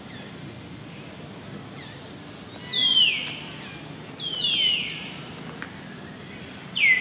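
A baby monkey's high-pitched cries, about four of them, each sliding down in pitch; two come close together in the middle.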